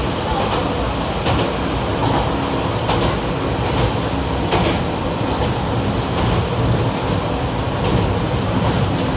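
Running noise heard inside the cabin of a Yamagata Railway YR-880 diesel railcar: a steady low rumble of engine and wheels on rail, with a few short sharp clicks.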